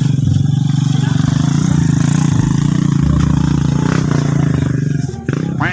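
Motorcycle engine running steadily, breaking off near the end with a short rising sound.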